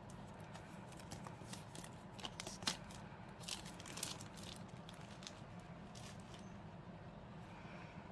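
Clear plastic wrap being peeled and pulled off a cardboard box, crinkling with a run of sharp crackles in the middle, the loudest about three and four seconds in.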